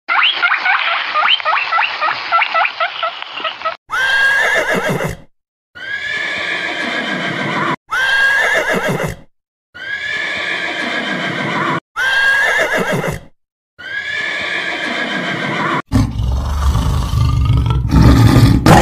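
A rapid run of short squeaky calls, then horses whinnying in six separate neighs with short gaps between them. Near the end, a tiger's deep growl takes over and is the loudest part.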